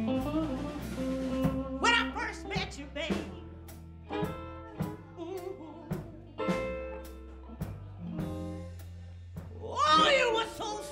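Live blues band playing a slow number, with steady bass notes and drum hits under instrumental phrases. A woman's voice comes in strongly about ten seconds in.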